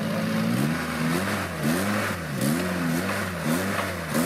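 Off-road 4x4 trial vehicle's engine revved in quick repeated throttle blips, its pitch rising and falling over and over.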